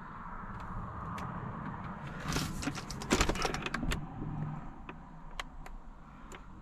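Light clicks and rustling of hands handling things inside a car's interior, bunched together in the middle.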